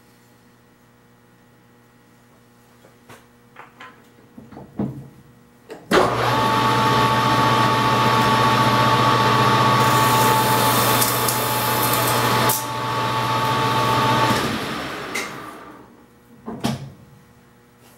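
A few light clicks and knocks of handling. Then, about six seconds in, a metal lathe switches on and runs for about eight seconds with a steady whine and hum while cutting a kaleidoscope object cell, then coasts down to a stop.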